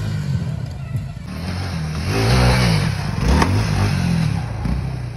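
Suzuki V-Strom 250 single-cylinder motorcycle engine revving up and down as it is ridden on a dirt track, louder and closer from about two seconds in.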